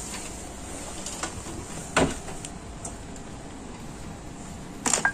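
Built-in steam oven door swung shut, closing with a single clunk about two seconds in, followed by a few sharp clicks near the end.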